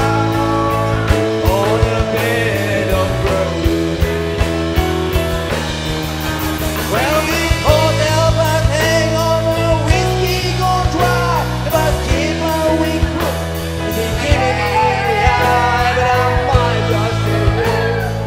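A song with a singing voice over sustained instrumental chords and a steady beat.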